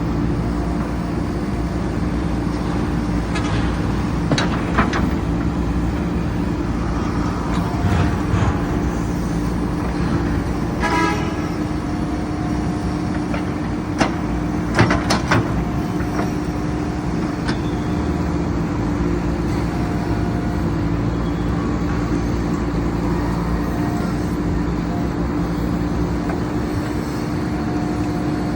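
JCB 3DX backhoe loader's diesel engine running steadily while the machine works, with a higher-pitched tone that comes and goes and a few sharp knocks, about five seconds in and again around fifteen seconds.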